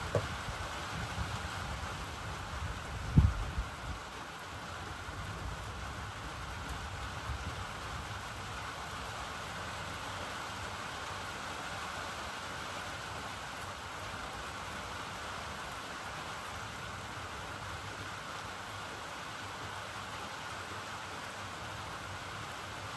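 Steady rain falling during a thunderstorm, an even hiss throughout. Two short low thumps come in the first few seconds.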